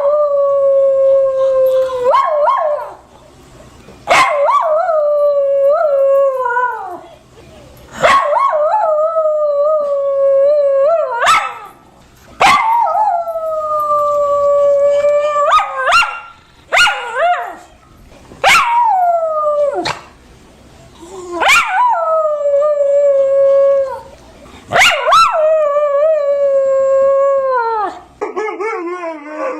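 A dog howling: a series of long howls, each held on a steady pitch for a few seconds and sliding down as it trails off, with short breaks for breath between them.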